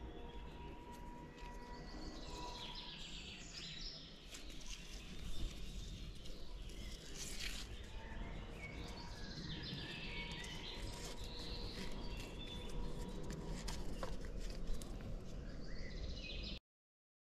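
Birds chirping and calling in woodland over a steady low background noise, with a few brief clicks; the sound cuts out for about a second near the end.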